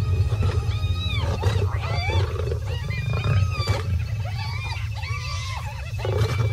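Lions growling and snarling in a confrontation with a clan of spotted hyenas over a kill. The hyenas yelp and whoop in many overlapping rising-and-falling calls over a deep continuous rumble.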